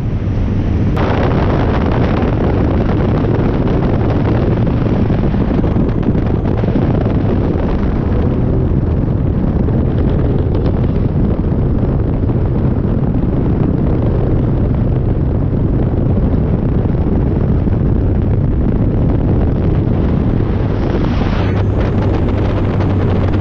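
Loud, steady noise of a vehicle on the move: heavy wind buffeting on the microphone over a low, steady drone.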